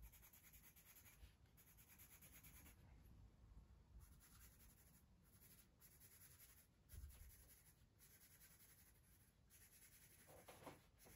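Faint scratching of a pencil scribbling back and forth on drawing paper, shading in small dark shapes.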